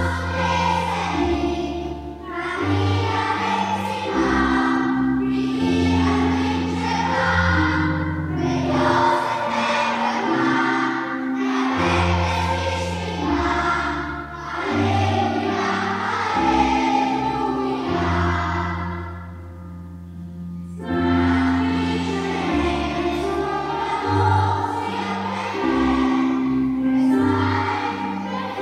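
A children's choir singing a song with keyboard accompaniment, steady bass notes and held chords under the voices. The music dies away briefly about two-thirds of the way through, then starts up again.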